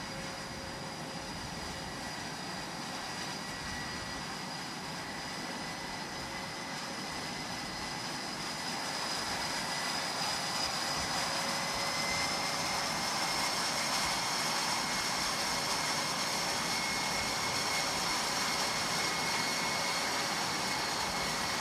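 Jet fighter engines running on a carrier flight deck: a steady rushing noise with a high whine that edges up in pitch and grows louder about halfway through.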